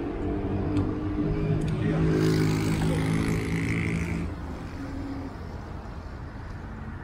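Street traffic with a motor vehicle passing close by: a steady engine tone and hiss that swell about two seconds in and fade after about four seconds.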